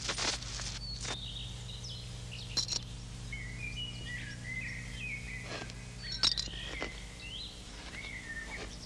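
Small birds chirping in short, sweeping calls over a steady low hum, with several sharp clicks, the loudest about a third of the way in and again past the middle.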